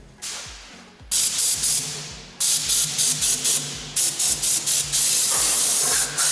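Compressed-air spray gun with a solvent cup spraying petrol solvent to wash down the engine's thermostat and water-pump seats. A faint hiss comes first. From about a second in there is a run of short, loud trigger-pulled blasts of hissing spray, which settle into a steady spray near the end.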